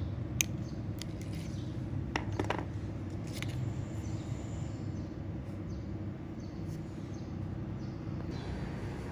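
Side cutters snipping the tag end of nylon fishing line with a sharp click about half a second in, followed by a few lighter clicks as the tool and hook are handled, over a steady low background rumble.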